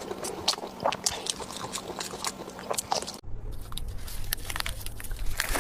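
A person chewing food close to the microphone: many short, quick mouth clicks and bites. About three seconds in the background changes abruptly and a low steady hum comes in.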